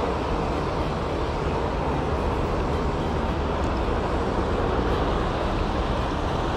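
Steady, even rush of river water pouring through and below a sluice gate weir.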